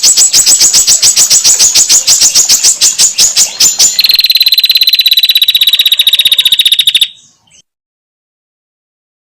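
Recorded calls of a female prinia (prenjak): a loud, dry rattle of about ten notes a second. About four seconds in it switches to a faster, higher trill that cuts off about seven seconds in.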